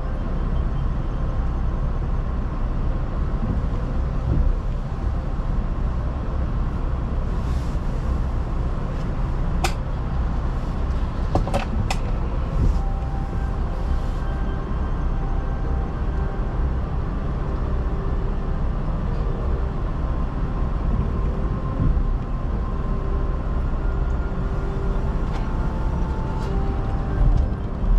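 Car cabin noise while driving: a steady low rumble of engine and tyres, with a few sharp clicks about ten and twelve seconds in.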